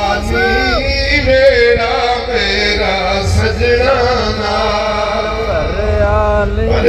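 Melodic devotional chanting: a voice holding long, wavering notes over a steady low drone.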